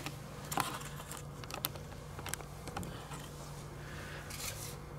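Hands handling a nylon tent's fabric: a few light, irregular clicks and rustles over a faint steady low hum.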